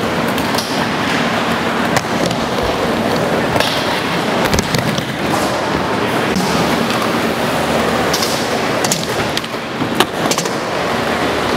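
Skateboard wheels rolling on wooden ramps, with several sharp clacks of the board and trucks hitting the ramp surface. The loudest clack comes about ten seconds in.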